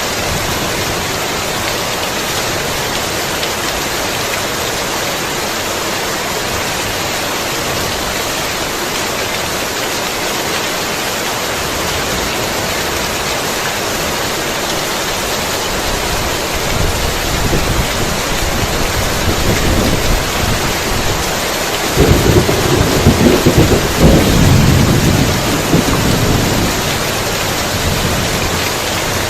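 Heavy rain falling steadily, with a low rumble of thunder building after the middle, loudest for a few seconds near the end, then easing.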